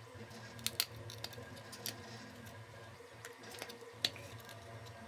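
Faint clicks and light taps of 3D-printed PLA rudder parts being handled and fitted together, over a low steady hum.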